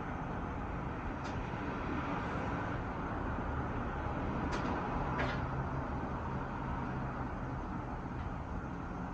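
Steady low rumble of background road-traffic noise, with a few faint sharp clicks around the middle.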